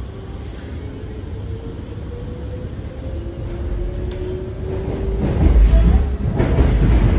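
Alstom Movia R151 metro train heard from inside the car as it pulls away, its traction motors whining in a tone that rises steadily with speed over the running rumble. The rumble gets louder from about five seconds in.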